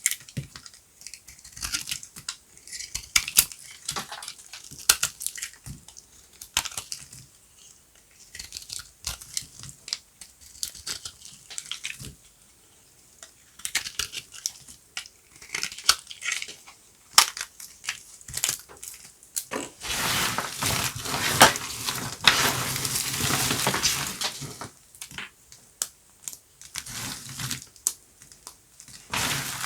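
Dry, crunchy bar soap being cut and crushed, giving sharp crackling snaps and crunches. About two-thirds of the way through, a denser stretch of continuous crunching lasts a few seconds before the separate cracks return.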